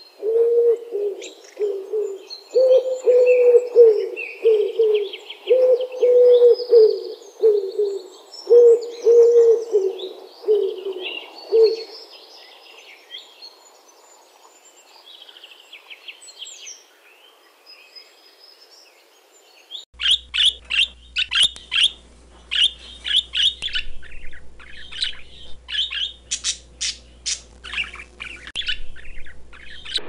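Rock pigeons cooing, a low rising-and-falling call about once a second for the first dozen seconds, with scattered higher chirps over it. After about twenty seconds comes a run of quick, sharp, high chirps from small birds.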